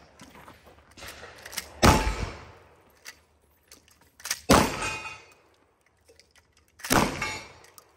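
Three lever-action rifle shots, roughly two and a half seconds apart, each fired at steel targets and followed by a short decaying ring.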